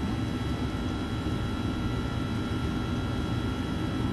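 Steady machinery hum and whir of a commercial bakery workroom, with faint constant high-pitched whines running through it.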